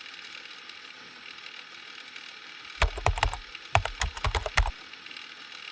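A quick run of about a dozen sharp clicks and knocks, some with a dull thud, lasting about two seconds and starting near the middle, over a steady faint hiss.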